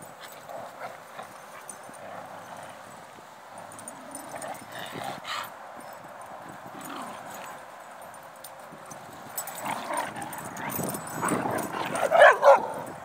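Dogs at play giving short barks and yips, with two loud barks in quick succession near the end.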